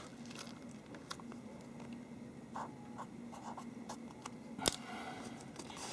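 Felt-tip marker writing on a paper note: faint, scratchy pen strokes as a number is written down, with one sharp tap near the end.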